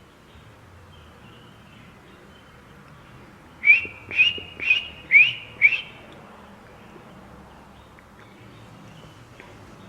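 Rockchuck (yellow-bellied marmot) giving its alarm whistle: five sharp, rising chirps about half a second apart, a few seconds in.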